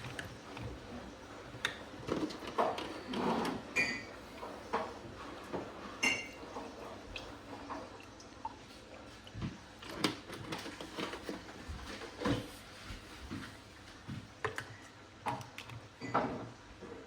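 Irregular light clicks, knocks and a few short clinks of plastic and crockery being handled on a kitchen counter.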